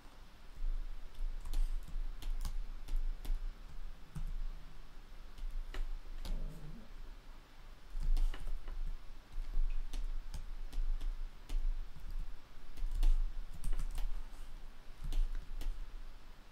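Computer keyboard keys and mouse buttons clicking at an irregular pace, in scattered single taps and short runs.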